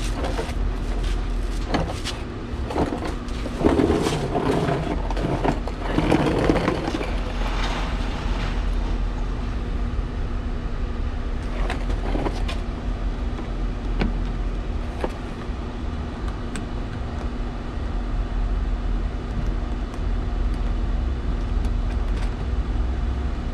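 Steady low background rumble with a faint constant hum, overlaid by scattered handling noises in the first several seconds and a few sharp light clicks and knocks later on, as diffuser brackets and fasteners are fitted under a car.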